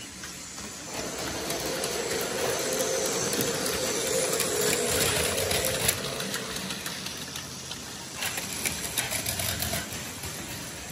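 Battery-powered Plarail Advance toy trains running on plastic track, their small motors whirring and wheels rattling. The sound builds about a second in, is loudest around the middle, then eases, with a run of sharp clicks near the end.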